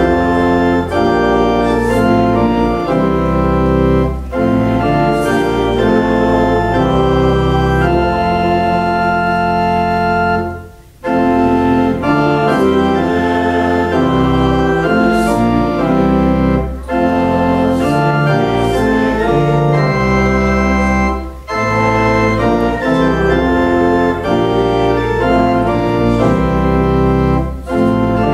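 Pipe organ playing sustained chords that change every second or two, with short breaks between phrases, the deepest about eleven seconds in.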